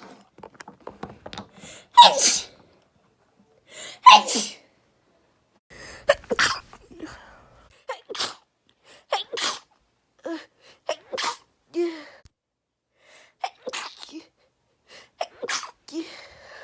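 A woman sneezing over and over: two loud sneezes about two and four seconds in, then a run of shorter, quieter sneezes every half second to a second.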